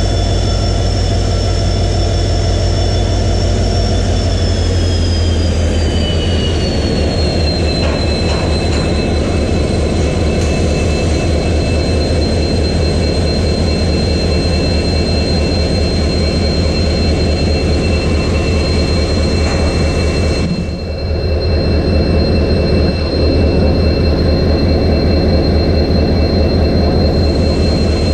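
EMD 16-cylinder 710 diesel engine of a WDP-4B locomotive idling with a loud, steady low hum and a high whine. The whine drops in pitch a few seconds in and then holds steady.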